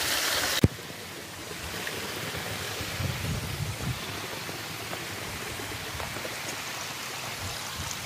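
Water from a small waterfall cascading over rock rushes loudly and cuts off with a click under a second in. After that comes the quieter, steady rush of a shallow rocky creek, with a few soft low thumps about three seconds in.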